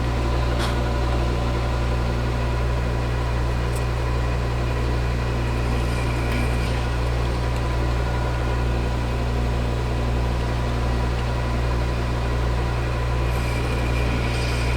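Metal lathe running with a steady low hum while a boring bar cuts a blind bore, feeding the last part of the way toward depth.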